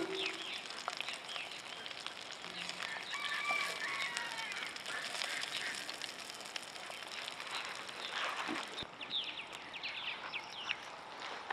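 Sausage patties sizzling quietly in a stainless frying pan, a soft crackling hiss, with a few short bird calls in the background.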